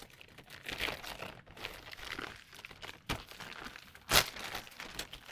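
Clear plastic bag crinkling and rustling as a plastic model kit sprue is handled and drawn out of it, with two sharper crackles about three and four seconds in.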